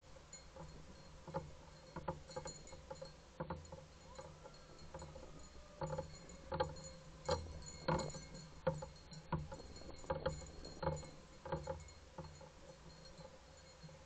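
Dark-eyed junco pecking at birdseed on a deck railing close to the camera: a run of irregular sharp taps, roughly one or two a second, coming thickest in the second half.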